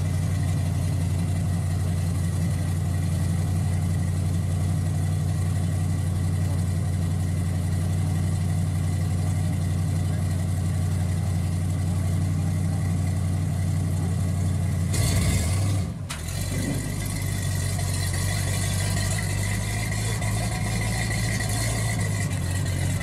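1950 Ford F-1 pickup's engine idling steadily, then about fifteen seconds in the sound changes as the truck pulls away.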